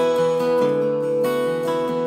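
Background music: an acoustic guitar tune, with one note held through most of the stretch.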